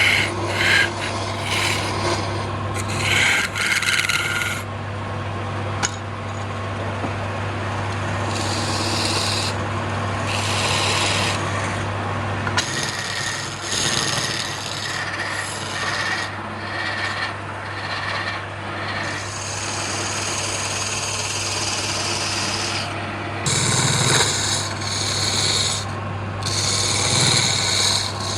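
Wood lathe running with a tool rasping against the spinning wood, a continuous scraping hiss over a low motor hum. The hum drops out about halfway through and comes back near the end.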